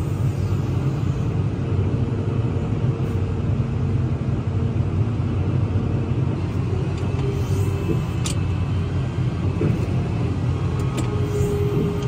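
Steady low rumble of farm machinery at work, the tractor's engine and the forage harvester chopping corn silage, heard from inside the tractor cab. A faint steady hum rides over the rumble, with one light click about eight seconds in.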